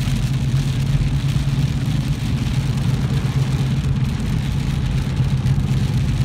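A car driving on a rain-soaked road, heard from inside the cabin: a steady low engine and road hum with the hiss of tyres on wet pavement.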